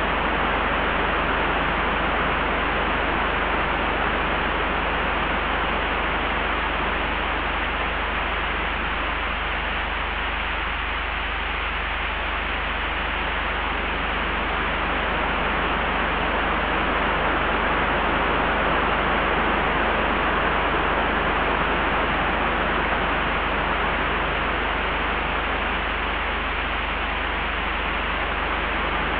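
Steady wind with a low rumble beneath a dense hiss, easing slightly about ten seconds in and swelling again later, without any sharp gusts.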